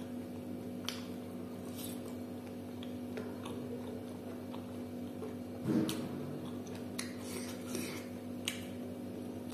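Close-up eating sounds: a person chewing a mouthful of rice and pork with small, scattered mouth clicks, and one louder short sound about six seconds in, over a steady low background hum.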